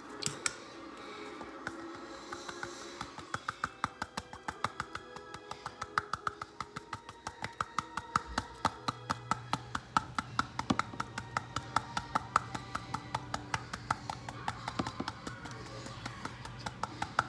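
Background music with a quick tapping beat of about five sharp clicks a second, joined about halfway through by a low steady hum.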